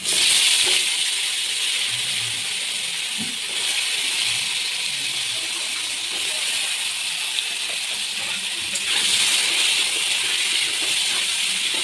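Sliced potatoes sizzling in hot oil in a karahi: the sizzle starts suddenly as the potatoes go into the oil, then goes on steadily, growing a little louder about nine seconds in.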